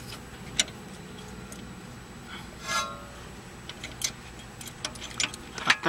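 A few sharp metallic clicks and taps from an inner tie rod tool and socket extension being worked on a Toyota Camry's inner tie rod, with a brief squeak about halfway through, over a steady low hum.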